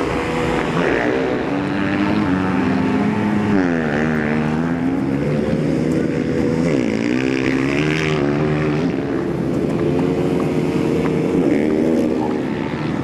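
Motocross bike engines running and revving, their pitch dipping and climbing again about four and seven seconds in.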